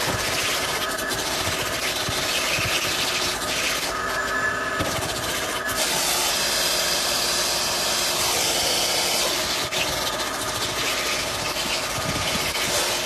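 Vacuum cleaner running steadily while its nozzle is rubbed back and forth over a car's carpeted floor mat to lift pet hair.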